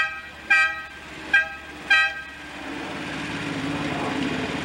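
A horn honking: three short toots in the first two seconds or so, each a clear pitched beep.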